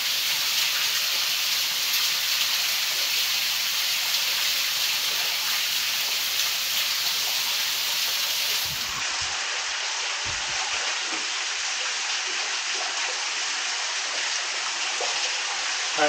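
Small waterfall splashing into a pool as a steady hiss of falling water. It turns slightly quieter and duller about nine seconds in.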